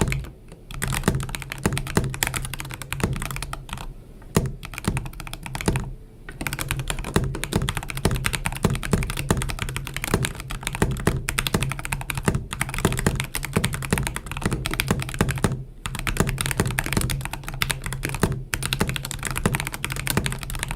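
Azio Cascade 75% mechanical keyboard being typed on quickly: a dense, continuous clatter of key strokes with a few short pauses.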